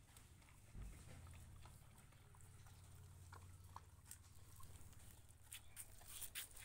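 Faint sounds of a dog eating from a plastic tub: soft clicks of chewing and licking, coming thicker over the last couple of seconds, over a low rumble.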